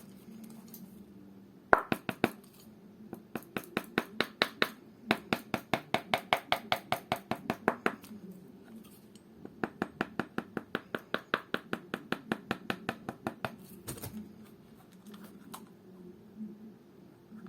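Polished shoemaker's hammer tapping leather quickly and evenly, about five light strikes a second, in two runs with a short pause between, to flatten the leather.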